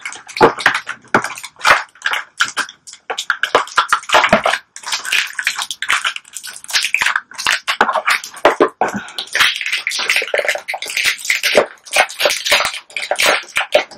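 Packaging being handled: a small cardboard box and its contents rustling and crinkling in a quick, irregular run of crackles as the doll's socks are worked out of it.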